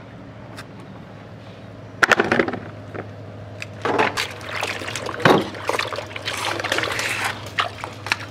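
Water splashing and sloshing in a plastic basin as peeled cassava and plantain pieces are washed by hand, starting suddenly about two seconds in and going on in irregular splashes.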